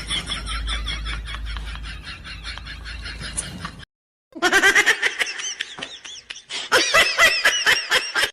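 High-pitched laughter in quick repeated bursts, used as a comedy sound effect, cutting off suddenly about four seconds in; after a short silence a second high-pitched laugh effect starts up in rapid bursts.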